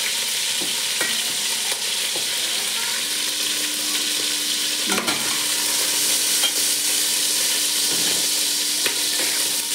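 Pieces of rabbit frying in hot oil in a stainless steel pot, a steady sizzle, with a few sharp clicks of the utensil against the pot as the pieces are turned. A faint steady hum joins about three seconds in.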